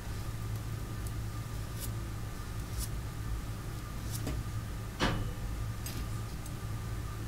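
A steady low room hum with a handful of small taps and clicks as a paintbrush and hands work over a paper collage on a tabletop. The loudest knock comes about five seconds in.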